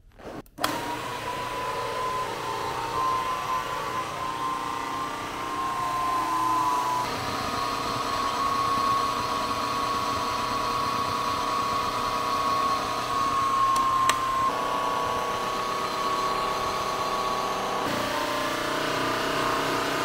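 Enolux S7 Lite wet and dry vacuum cleaner switching on about half a second in and running steadily with a high whine, its pitch shifting slightly a few times, and a single click partway through. Its motor is suspected of having been damaged by being plugged into a 220 V outlet, and it can't really suck up water.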